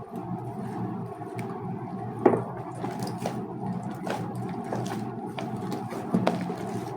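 Glue-based homemade slime being mixed and worked by hand: soft, continuous squishing with a few sharp sticky pops.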